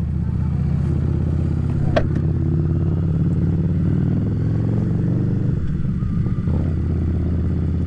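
Harley-Davidson Street Rod's 750 cc V-twin engine running steadily while riding, its note shifting and settling lower about six and a half seconds in. A single sharp click about two seconds in.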